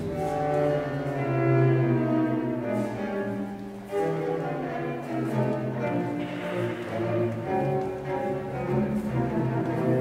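Cello playing live, bowed notes held and changing in a slow phrase, with a brief dip in loudness just before a new phrase begins about four seconds in.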